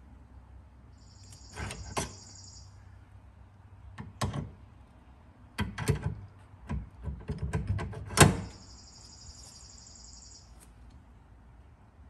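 A new aluminium golf-cart front wheel hub assembly being slid onto and fitted over its steel spindle: a series of metal clicks and knocks, the loudest a sharp clunk about eight seconds in. Twice a high, even chirring sound runs for about two seconds.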